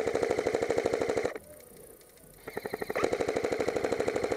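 Airsoft rifle firing two bursts of rapid full-auto fire close to the microphone. The first burst stops about a second and a half in; the second starts about a second later.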